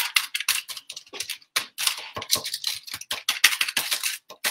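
Spoon pressing and spreading crushed ginger biscuit crumbs over baking parchment in a dish: a fast, irregular run of short scrapes and crackles.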